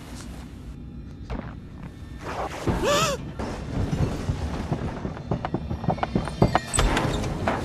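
A brief wavering pitched squeal about three seconds in, then a run of irregular knocks and thumps over quiet background music.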